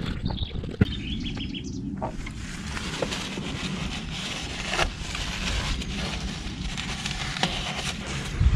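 A few light clicks and knocks of hand work on the engine over steady outdoor background noise.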